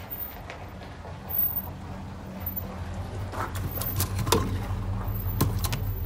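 A few scattered knocks and clicks of discarded items being handled, over a steady low hum.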